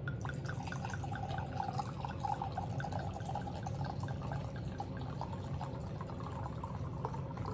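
Red wine pouring steadily from a glass bottle into a stemmed wine glass.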